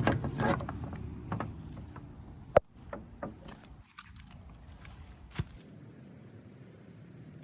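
Scattered mechanical clicks and light knocks of something being handled, with a sharp click about two and a half seconds in and another about five and a half seconds in.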